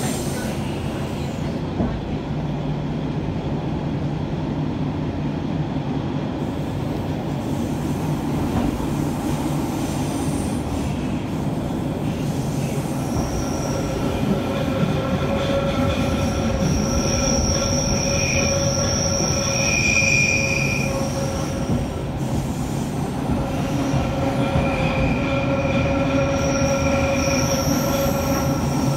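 Metre-gauge NStCM electric train heard from inside a passenger car: a steady rumble of wheels on rail. From about halfway in, a high wheel squeal rings out as the train rounds a curve, easing off briefly before coming back near the end.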